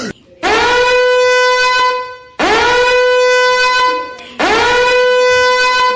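Three loud horn-like blasts from a meme sound-effect clip, each scooping quickly up in pitch and then held steady for about a second and a half, with short gaps between them.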